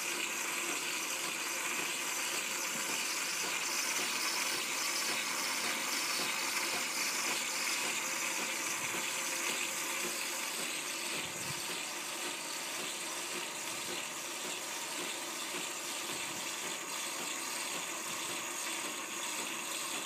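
Nespresso Lattissima+ milk frother steaming and frothing milk, a steady hiss as the frothed milk streams from the spout into the cup, easing a little partway through.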